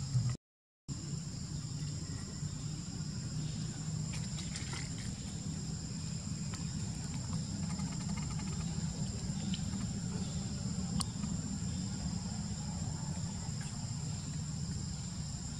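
Steady high drone of insects, two even high tones, over a low steady rumble of outdoor background noise. The sound cuts out for about half a second just after the start, and a few faint ticks come through.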